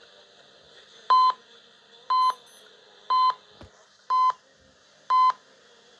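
Radio time signal pips played through the Sanyo M2405 radio-cassette player's speaker: five short, high beeps one second apart over faint hiss, counting down to the top of the hour. A longer final pip begins right at the end.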